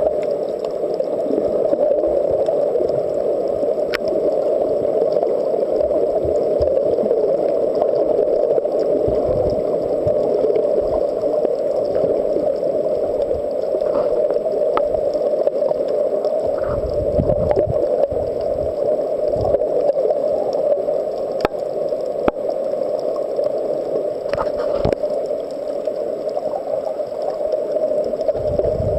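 Underwater sound picked up through a camera's waterproof housing: a steady, muffled water hum with low gurgling rumbles three times.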